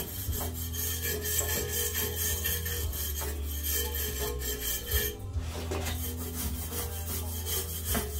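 Wire brush scrubbing rust off a metal truck step rail in continuous back-and-forth strokes, with a short pause about five seconds in.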